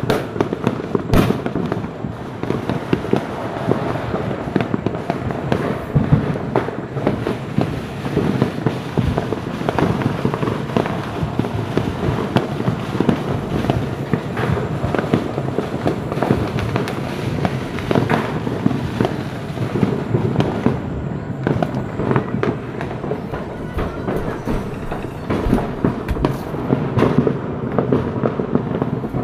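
Fireworks and firecrackers going off continuously, a dense stream of overlapping bangs and crackling pops with no pause.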